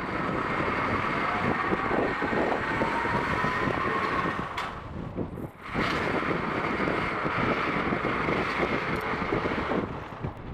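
Wind rushing over the microphone of a head-worn Google Glass during a bicycle ride, mixed with road and tyre noise. It dips briefly about five seconds in.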